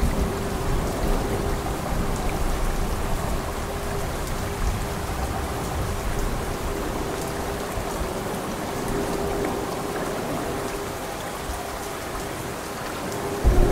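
Steady heavy rain falling. The low rumble of thunder dies away in the first second or so, and a fresh thunder rumble breaks in suddenly just before the end.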